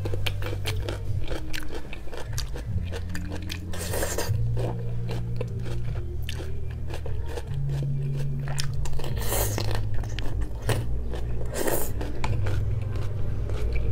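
Close-miked crunching and chewing of pickled radish, many crisp bites one after another, over a steady low hum that changes pitch every few seconds.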